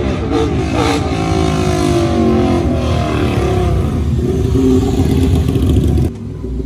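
Ducati 899 Panigale's L-twin engine running through a very loud exhaust, revving as the bike rides around, its pitch falling and rising. It settles into a steadier note near the end, then the level drops suddenly about six seconds in.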